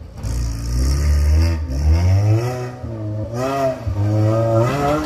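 Off-road 4x4's engine revving hard, its pitch rising and falling several times as the driver works the throttle over the rough dirt track.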